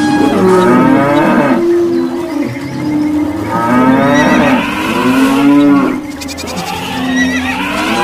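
Cattle mooing, several long calls overlapping one another and swelling in three loud waves.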